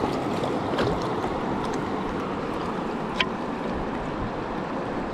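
River water flowing steadily over rocks, with a few small clicks, the sharpest about three seconds in.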